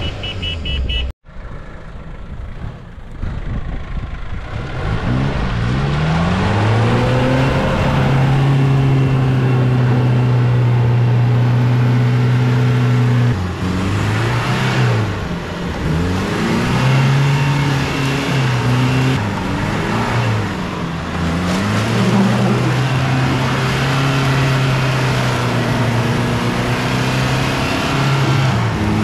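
A 4x4's engine revving hard as it churns through deep mud, with mud flung from the spinning tyres. The revs repeatedly climb, hold high for a few seconds, dip and climb again, after a brief dropout about a second in.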